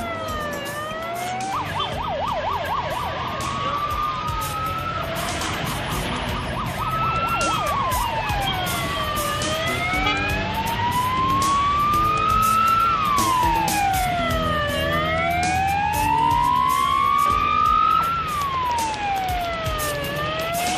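Police motorcycle siren wailing in slow rising and falling sweeps about two and a half seconds each. Twice in the first seven seconds it switches to a fast yelp, over the low rumble of traffic.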